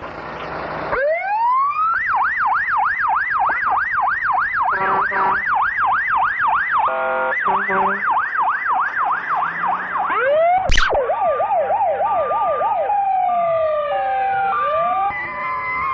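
Emergency vehicle sirens: a siren wails up about a second in, then yelps rapidly, with a horn blast around seven seconds. Near the end the siren slides down in pitch, along with a second falling siren.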